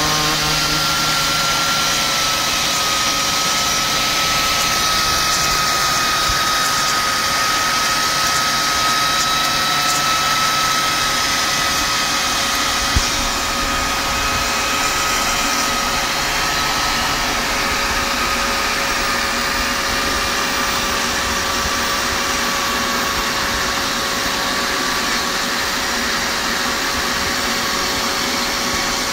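Makita 4-inch angle grinder running under load with a MaxVac dust shroud and vacuum extraction, grinding out the mortar joints of brickwork for repointing. The sound is a steady high whine over a rough grinding and suction noise, with a single knock about halfway through.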